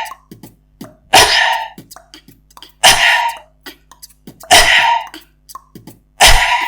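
Beatboxed cough snare done four times at an even pace, about every 1.7 seconds: a sharp throat cough that runs straight into a loud whispered rush of air, each fading within about half a second. Small mouth clicks and breaths come between the hits.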